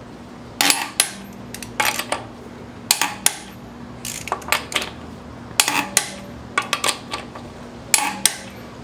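Click-type torque wrench and steel socket working lug nuts: short groups of sharp metallic clicks and clinks about once a second, as the socket goes onto each nut and the wrench clicks when the nut reaches its set torque of 120 ft-lbs.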